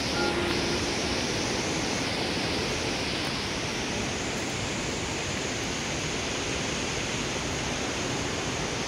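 Steady, unchanging rushing of the Giessbach Falls' falling water.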